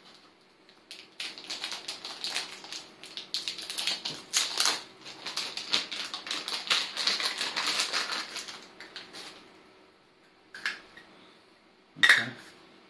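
Clear plastic packaging bag crinkling and crackling for about eight seconds while a small camera adapter is unwrapped. Near the end, two short handling knocks, the second the loudest.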